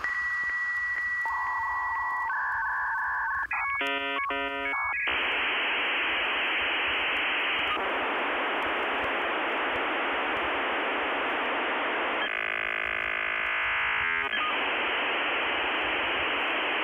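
Dial-up modem handshake over a telephone line: a steady high tone, shifting paired tones and a short burst of stacked chirping tones, then a long hiss of scrambled static with a warbling, ringing stretch about three quarters of the way through.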